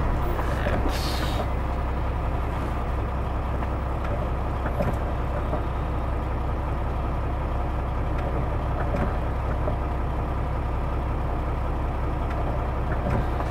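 Semi-truck's diesel engine idling steadily, heard from inside the cab, with a brief hiss about a second in.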